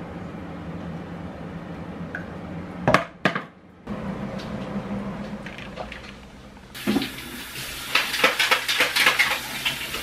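Plastic clatter of a protein shaker bottle and powder scoop being handled: a couple of sharp knocks about three seconds in, then a few seconds of rapid rattling clicks near the end.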